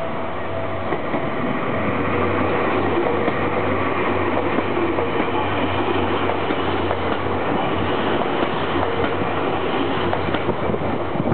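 Seibu 101-series electric train, an all-motor-car set, running past over a level crossing: a loud, steady rush of wheel and motor noise with irregular knocks from the wheels.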